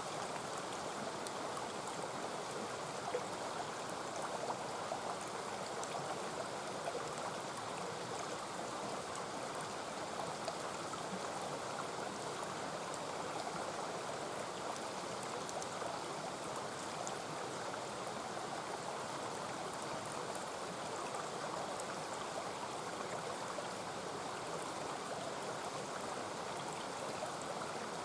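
Mountain stream rushing steadily, with a few faint, sharp ticks over it, such as campfire crackles.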